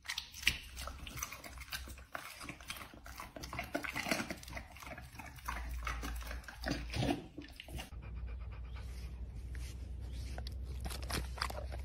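A Rottweiler biting and chewing raw meat on the bone, with many quick, irregular crunching and smacking bites; after about eight seconds the bites thin out over a steady low hum.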